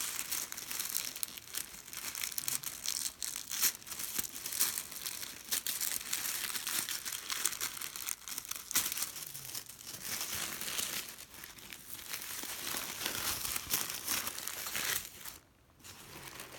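Tissue paper crinkling and rustling as it is unfolded and pulled back by hand, a dense crackle of small sharp sounds with a brief lull about a second before the end.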